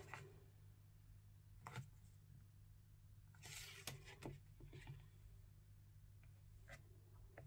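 Faint rustling and light taps of a glossy picture-book page being turned by hand, softest near the start and most noticeable about three and a half to four seconds in, over a low steady hum.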